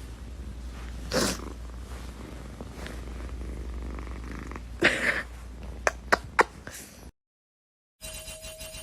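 Domestic cat purring with a steady low rumble, the weird sound its owner asks about, broken by two louder noises about a second in and about five seconds in and three sharp clicks soon after. The sound cuts off abruptly about seven seconds in.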